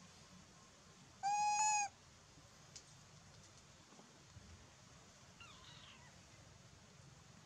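Young macaque giving one loud, level-pitched coo call, about two-thirds of a second long, a little over a second in.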